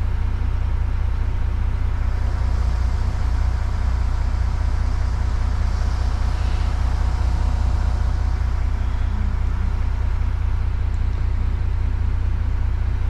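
Simulated truck engine idling steadily in Euro Truck Simulator 2: a constant low rumble with no revving.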